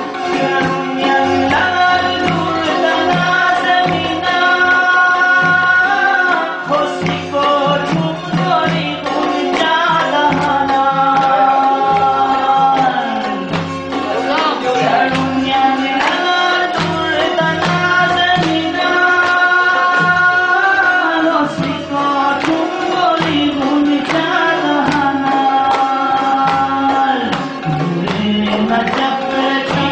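Live folk song: a man singing into a microphone, backed by a long-necked plucked lute, an electronic keyboard and a steady drum beat.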